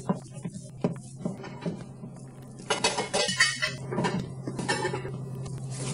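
Dishes and cutlery clinking and clattering: a string of light knocks, with a louder clatter about three seconds in, over a steady low hum.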